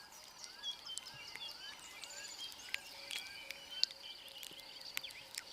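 Faint savanna ambience: a steady high-pitched insect trill with scattered short bird chirps and a few sharp clicks.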